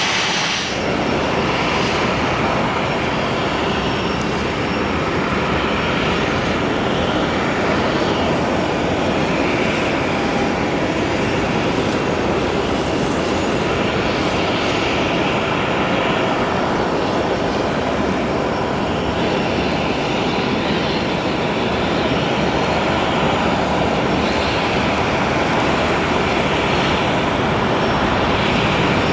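Jet engines of an Airbus A320 running at high power on its takeoff roll down a wet runway, a steady, even noise with no breaks. A brief edit about half a second in cuts over from a preceding airliner's takeoff.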